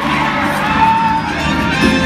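Live circus band music playing while the crowd cheers and whoops, with a short held call about a second in.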